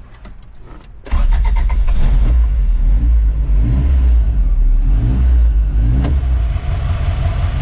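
Toyota 22R-series four-cylinder engine started after a water pump replacement and coolant refill: a second of quiet clicking, then it catches suddenly and runs, the revs rising and falling before it settles into a steadier idle about six seconds in.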